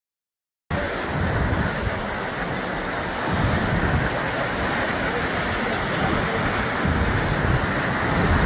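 Sea waves breaking and washing over rocks, with wind rumbling on the microphone. The sound cuts in suddenly just under a second in and runs on steadily.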